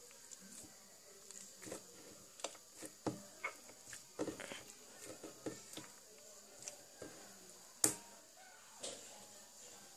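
Slime being squeezed and stretched by hand: irregular soft sticky clicks and squelches, with one sharper pop just before the eight-second mark.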